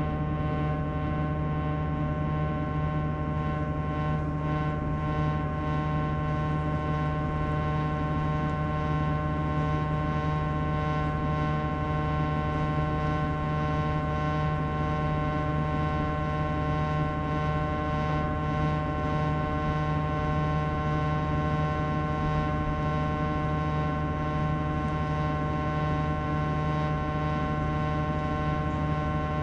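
Sharp AY-J40S-W room air conditioner making a steady abnormal hum of several tones, strongest low in pitch, with higher whining tones above it: the noise that a repair of its frequency fault has not cured.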